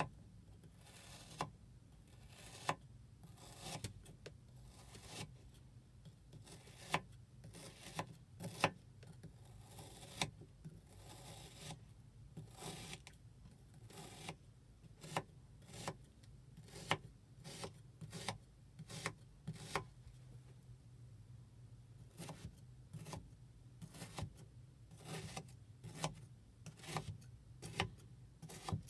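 Kitchen knife slicing through balls of kinetic sand: a run of short, crisp crunching cuts, roughly one or two a second at an uneven pace, with a faint scraping rasp between them.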